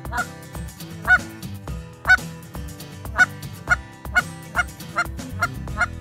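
Canada goose call blown by a hunter in a run of short honks and clucks, each with a quick break in pitch. The honks come about a second apart, then speed up to about two a second about halfway through, as a caller does to draw a flock into the decoys.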